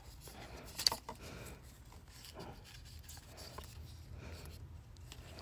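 Hands handling a webcam and its cardboard box: faint rubbing and rustling, with one sharp click a little under a second in.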